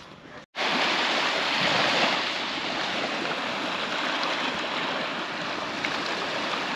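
Steady rush of water and wind noise, starting abruptly after a brief cut-out about half a second in.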